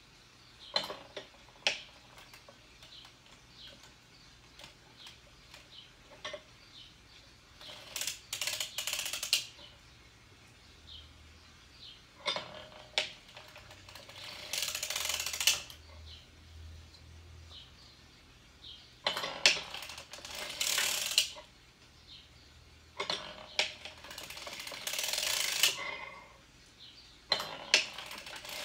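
Hand-cranked circular sock machine knitting in about five short runs of a second or two each, the needles clattering through the cams as the crank turns. Sharp single clicks come between the runs.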